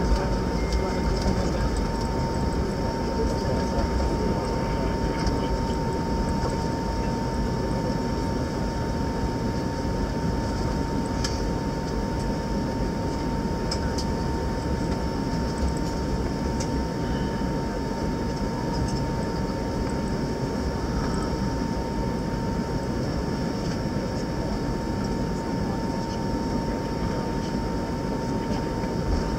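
Airbus A321neo cabin noise while taxiing on engine idle: a steady deep rumble with a thin, steady whine at one pitch and a few faint clicks.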